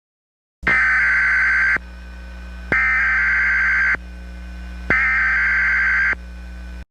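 Emergency Alert System SAME header: three harsh, screeching data-tone bursts of about a second each, a second apart, over a steady electrical hum. It starts abruptly after a moment of dead silence and cuts off sharply near the end.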